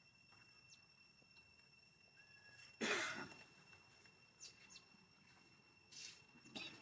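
A baby monkey giving one short, louder cry about three seconds in, followed by a few faint squeaks.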